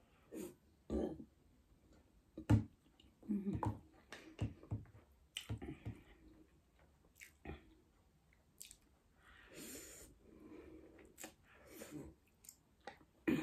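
Close eating sounds: a person slurping Korean noodles and chewing, with irregular wet mouth smacks and clicks and a longer hissing slurp about ten seconds in.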